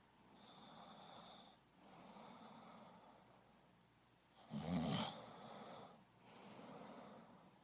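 A person breathing in and out in slow, even breaths about a second and a half long, with one louder, snoring breath about halfway through.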